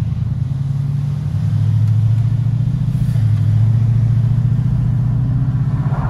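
Car driving, its engine and road noise a steady low drone that grows a little louder over the first couple of seconds.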